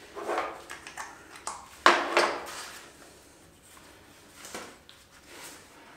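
Handling noises: a few short knocks and rustles as the heat gun's cord and plug and a crimped cable lug are picked up and moved about, the loudest about two seconds in, then only faint small sounds.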